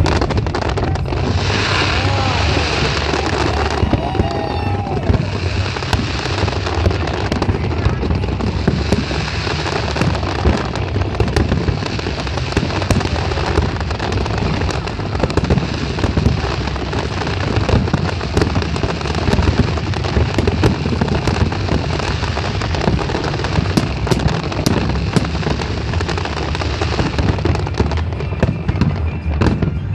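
Fireworks display going off continuously: dense crackling and popping from many shells and fountains firing together, over deep booms from the bursting shells.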